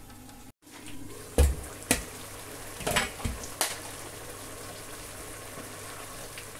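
Pot of egusi soup simmering with a steady bubbling hiss, broken between about one and four seconds in by four sharp knocks of the lid and a wooden spoon against the pot, the first the loudest.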